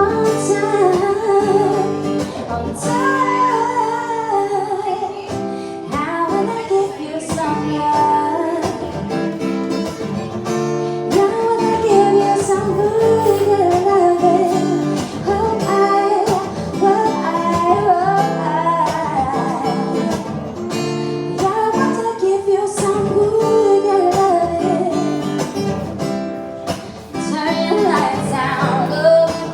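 Live song: a singer with strummed acoustic guitar.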